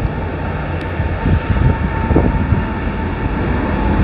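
Jet engines of a Boeing 777 as it speeds down a wet runway: a steady roar with a faint whine, growing louder, with wind buffeting the microphone.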